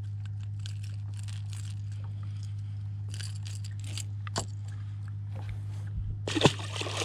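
Steel pliers clicking and rattling against a lure's treble hooks as they are worked out of a bass's mouth, over a steady low hum. About six seconds in, the released bass splashes into the water.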